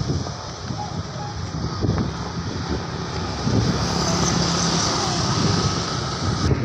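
Motorbike traffic on a road: small engines running by over a low rumble, with a scooter passing close near the end.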